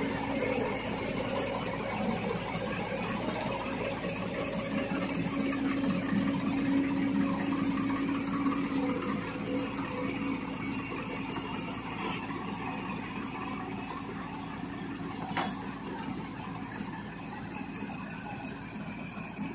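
Diesel engines of a Ford 3600 tractor and a JCB 140 crawler excavator running together as the excavator's bucket pushes the stuck tractor through mud. A steady engine hum fades out about halfway through, and there is a single sharp click near the end.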